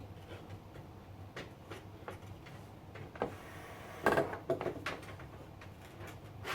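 Small clicks and knocks of computer hardware being handled, with a short clattering scrape about four seconds in, over a low steady hum.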